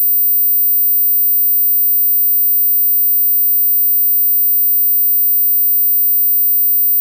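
Steady, very high-pitched pure sine-wave test tone, played unchanged throughout. It is meant as a hearing test: a frequency near the top of human hearing that people over about 35 can no longer hear.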